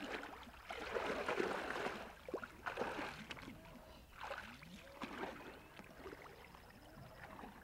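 Water splashing and sloshing in irregular surges as someone wades through shallow water beside a canoe, loudest about a second in.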